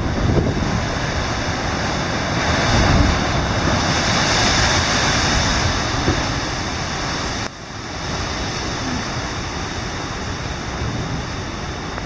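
Heavy ocean surf surging and crashing into a limestone chasm, churning white water and water pouring back down the rock, with strong wind buffeting the microphone as a low rumble underneath.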